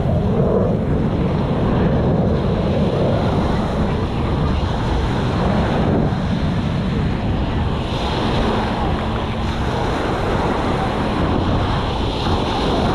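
Small ocean waves breaking and washing up the beach, a steady surf noise, with wind buffeting the microphone.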